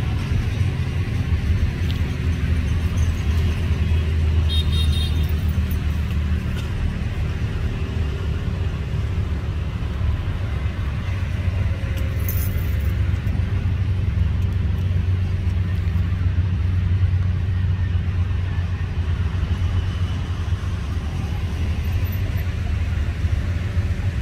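Steady low rumble of a D19E diesel-electric locomotive's engine as it approaches from a distance hauling a freight train, mixed with city traffic.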